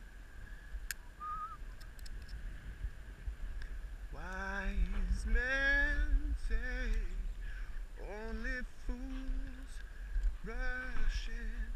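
A man singing or vocalizing a wordless tune in a run of short, sliding phrases, starting about four seconds in. Under it runs a faint steady high tone and a low rumble, with a couple of small clicks near the start.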